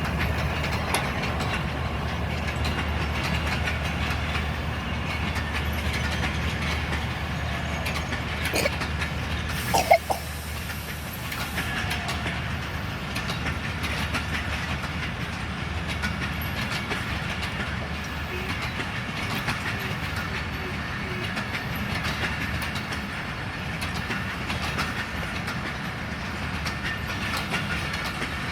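Passenger train rolling through the station, its carriage wheels clacking steadily over the rail joints. A low hum underneath stops about sixteen seconds in. A single sharp metallic clank, the loudest sound, comes about ten seconds in.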